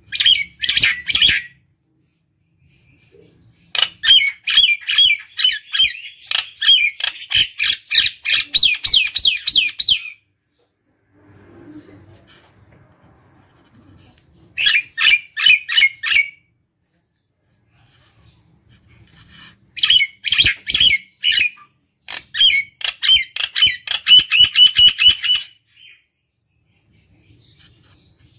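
Common myna singing in five bouts of rapid, harsh repeated notes, the longest lasting about six seconds, with pauses of a few seconds between them.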